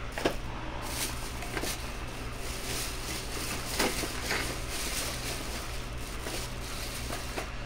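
Steady low background hum with a few faint, scattered clicks and rustles.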